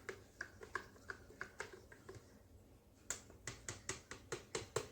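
Plastic AeroPress stirring paddle clicking against the plastic brewing chamber as grounds and water are stirred: a faint run of light, irregular clicks, several a second, with a short pause a little past halfway.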